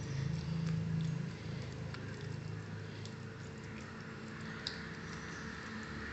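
A spoon stirring a thick, wet lemon curry in a glass bowl: faint soft squelching, with a few light clicks of the spoon against the glass.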